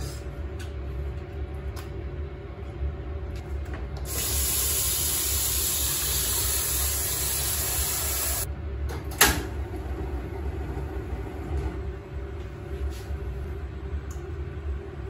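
Tap water running hard into a pot for about four seconds, a steady rush that cuts off abruptly, followed about a second later by a single sharp knock. A low steady hum and small kitchen clicks sit underneath.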